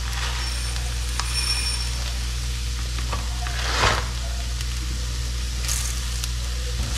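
Arborio rice toasting with garlic and onion in a hot oiled pan, sizzling steadily, with a spoon scraping through it about four and again about six seconds in.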